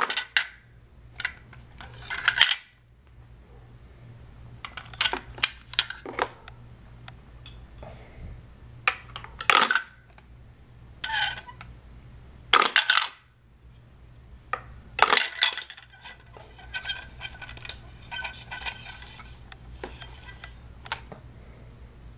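Hard plastic toy pieces clattering: a toy crate and chunks of toy coal drop through a plastic engine-shed playset's chute and land in a plastic wagon. A sharp knock or rattle comes every two or three seconds, with lighter clicking near the end.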